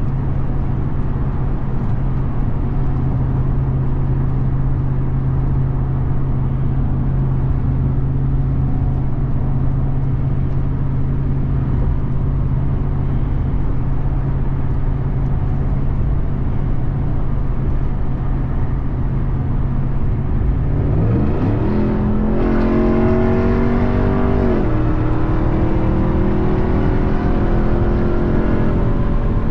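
2021 Ram 1500 TRX's supercharged 6.2-litre Hemi V8 droning steadily while cruising, then accelerating about two-thirds of the way in: the engine note rises, drops back at a gearshift a few seconds later, and climbs again.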